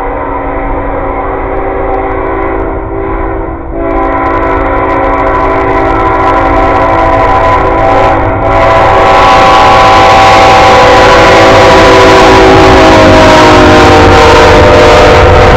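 CSX freight locomotive's air horn blowing long blasts for the grade crossing as the train approaches, with short breaks about four and eight seconds in. From about eight seconds in the locomotive's engine and wheel noise swell up loud as it passes close by, the horn still sounding and its pitch dropping slightly.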